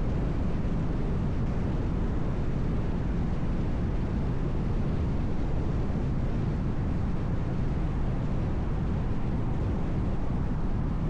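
Steady road noise of a car driving at speed: an even, low rumble of tyres and wind with no changes.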